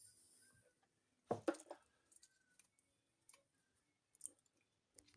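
Near silence with faint handling sounds as fresh basil leaves are added to a salad bowl by hand: a short soft rustle about a second in, then a few light ticks.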